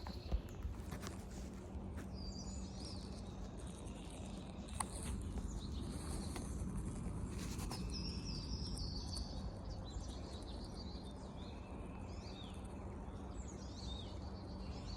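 Several birds singing and chirping in woodland, short high calls and trills coming throughout, over a steady low background rumble, with a couple of faint clicks.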